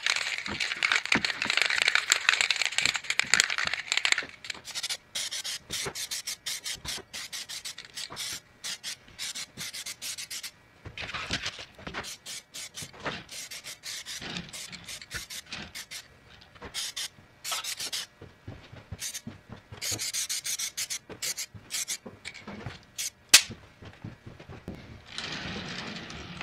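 Aerosol spray can of primer hissing in bursts, one long spray at first and shorter ones later, with many sharp clicks and knocks between the bursts and one loud knock near the end.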